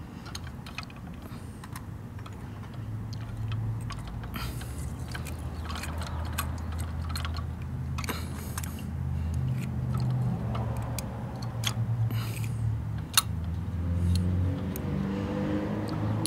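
Light clicks and rattles of a small plastic toy garbage cart and diecast model truck parts being handled, with one sharper click about thirteen seconds in. Underneath runs a low engine-like drone that rises in pitch near the end.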